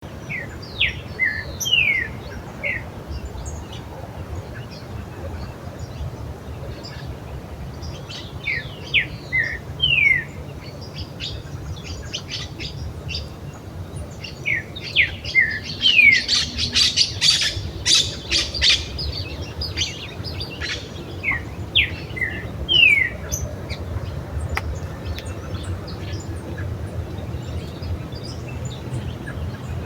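Several wild birds calling: repeated short, quickly falling chirps throughout, with a thick burst of harsher squawking calls around the middle, over a steady low background rumble.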